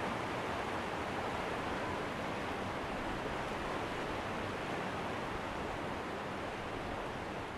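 A river rushing steadily over shallow rocky rapids, a constant even rush of water.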